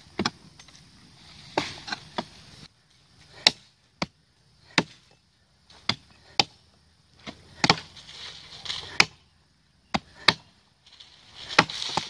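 Long-handled mattocks striking soil and roots around a tree's base: a dozen or more sharp, irregular chops, with dirt scraping between them.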